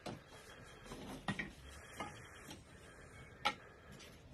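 A few scattered sharp clicks and knocks from the split kindling of a newly lit fire on a bed of lovo stones, as the sticks are handled and the flames take; the loudest knock comes about three and a half seconds in.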